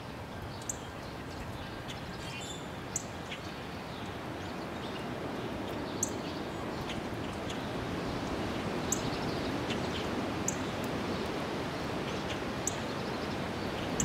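Small songbirds giving scattered short, very high chirps, one every two or three seconds, over a steady outdoor background hiss that swells slightly.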